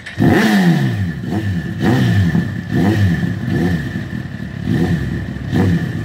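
Honda CBR 1000cc sportbike's inline-four engine revved in a string of throttle blips, about one a second, the revs rising and falling each time.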